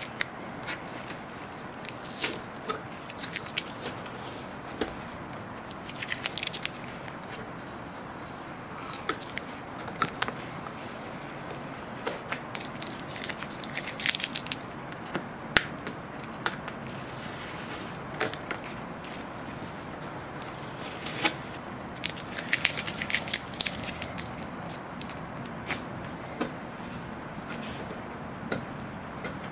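Masking tape being picked at and peeled off a molded carbon glider wing, crackling and tearing in short bursts with sharp clicks of handling in between.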